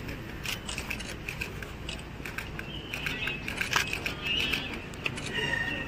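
A string of irregular sharp clicks and crackles, with faint indistinct voices of a small crowd in the second half.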